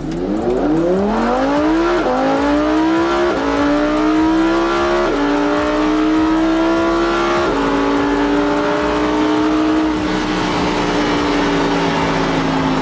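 Lamborghini Huracán EVO's 5.2-litre V10 accelerating at full throttle from a near standstill, its pitch climbing through the gears with four quick upshifts, each a sudden drop in pitch, in the first eight seconds. In fifth gear the note holds, then the revs slowly fall near the end.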